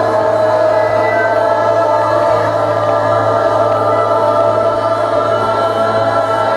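Worship music: a group of voices singing held notes over a steady, sustained chord.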